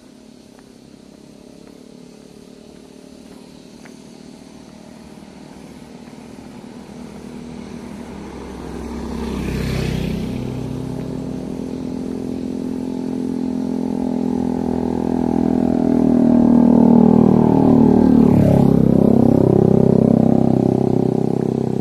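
Motorcycle engines passing on the road: one goes by about ten seconds in, and a louder one near the end, its engine pitch falling as it passes.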